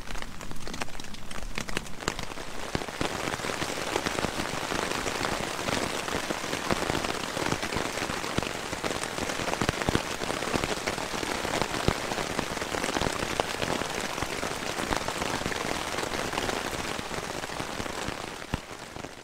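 Heavy rain falling steadily, with many separate drop hits, fading out at the end.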